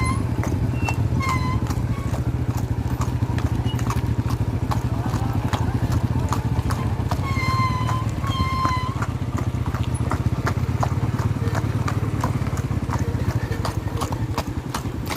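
Horse's hooves clip-clopping steadily on the ground as it is ridden, over a continuous low rumble. A few short high-pitched chirps come through about halfway in.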